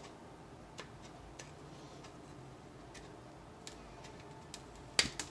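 Resin 3D-print support struts snapping off a printed model: scattered small, sharp clicks, with two louder cracks close together about five seconds in.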